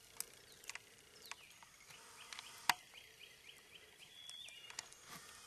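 Faint scattered clicks and snaps of twigs and dry leaf litter under foot and hand, the sharpest a single snap nearly three seconds in. Behind them, a faint series of quick, repeated down-slurred chirps ending in one held note.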